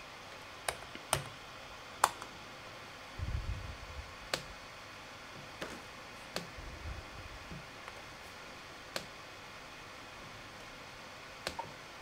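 Scattered single clicks and key taps on a Dell XPS 15 2-in-1 9575 laptop's keyboard and touchpad, about eight in all, with two soft low thumps, over a faint steady hiss from the laptop's fans turning slowly in quiet mode.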